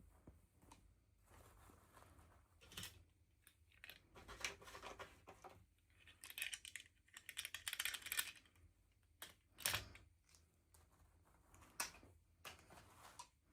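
Faint unboxing handling noises: plastic packaging crinkling and tearing, with small parts clicking. A longer crinkly stretch about halfway through and a few sharp clicks.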